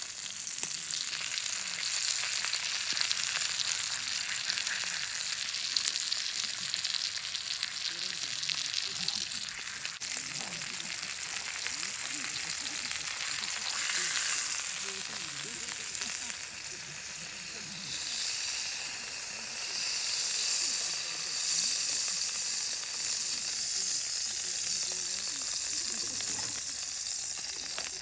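Rib roast steak searing in a cast-iron skillet over a charcoal fire, a loud steady sizzle throughout. It flares up as the steak is laid in, and again about halfway through when the steak is turned with chopsticks.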